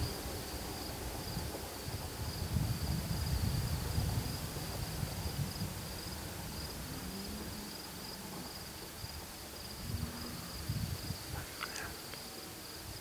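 Crickets chirping in a steady high night chorus, over intermittent low rumbling that is strongest in the first few seconds and again briefly about ten seconds in.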